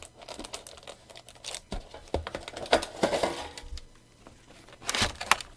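Booster packs and a plastic tray being handled as the packs are taken out of a tin: a run of light clicks and crinkles, with louder rustles about three seconds in and again near the end.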